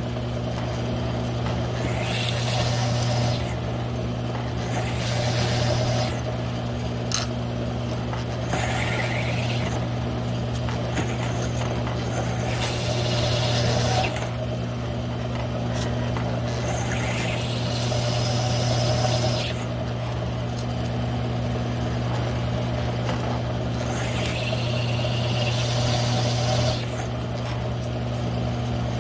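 Mill-drill running steadily while a one-inch hole saw cuts through 3/8-inch steel plate, with a high-pitched squeal that rises in pitch every few seconds as the teeth bite into the steel.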